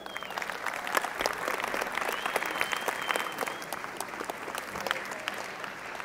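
Audience applauding: dense, steady clapping that eases off slightly near the end.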